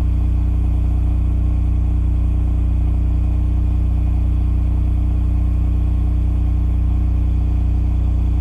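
Cummins RS-20A standby generator running steadily under load at 3,600 rpm, heard from about 7 metres away: an even, unchanging engine hum.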